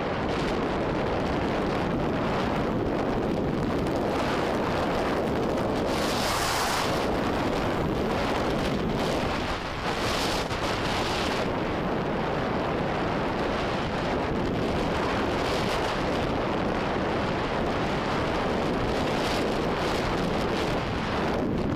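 Wind buffeting a helmet-mounted camera's microphone on a fast downhill mountain-bike run, mixed with the steady rumble of tyres and bike over gravel and rocky dirt trail. A couple of brief harsher hissing stretches come about six and ten seconds in.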